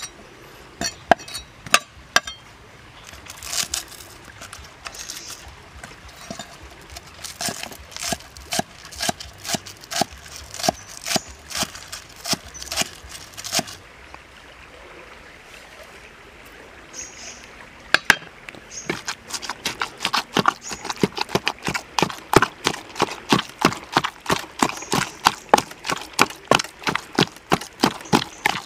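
A cleaver chopping spring onions on a wooden chopping block, a run of sharp knocks about two a second. From about two-thirds of the way through, a wooden pestle pounding minced meat in a wooden mortar, steady strikes about three to four a second.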